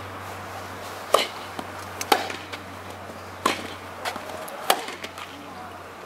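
Tennis ball struck back and forth by rackets in a rally, four sharp hits about a second apart.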